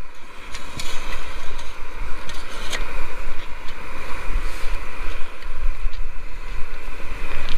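Wind buffeting the microphone in uneven gusts over a steady hiss, with a few small clicks and knocks.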